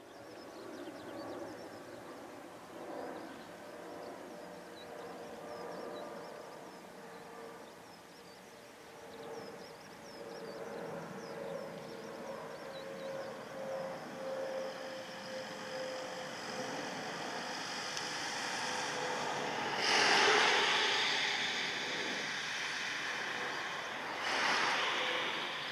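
Boeing 777 freighter's GE90 turbofan engines at climb power overhead: a steady jet noise with several held tones that swells slowly, with two brief louder rushes near the end.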